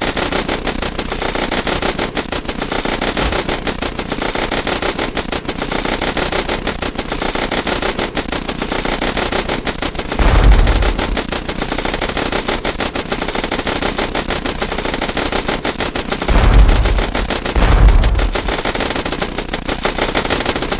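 Sustained automatic rifle fire from several guns at once, a dense rattle of shots, with three heavy low booms: one about halfway through and two close together near the end.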